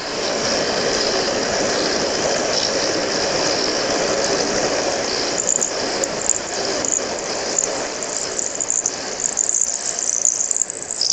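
Metal lathe cutting into aluminum bar stock, drilling or boring it out for trim rings: a steady cutting noise with short, high squeaks from the tool in the second half, stopping sharply just after the end.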